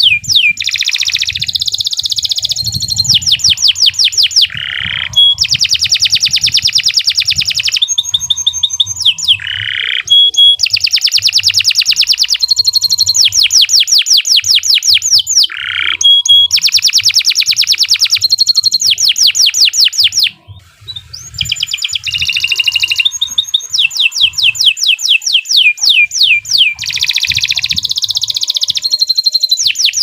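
Domestic canary singing a long, continuous song of rapid trills, each phrase a fast run of repeated sweeping notes, changing from one phrase to the next, with one brief pause about twenty seconds in.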